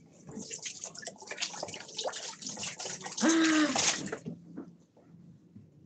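Water splashing and dripping in a series of crackly spatters, with a short voice sound over it about three seconds in, then it goes quiet.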